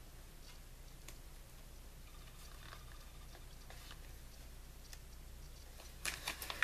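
Washi tape being handled on a paper planner page: faint scattered ticks and rustles, then a louder crackling near the end as the tape is pulled.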